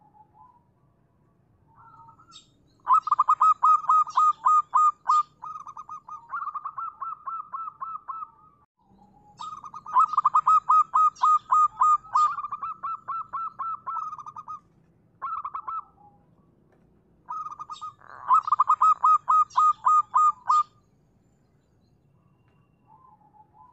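Zebra dove (local perkutut) cooing: three bouts of fast, rapidly repeated coo notes lasting several seconds each, with short single coos in between.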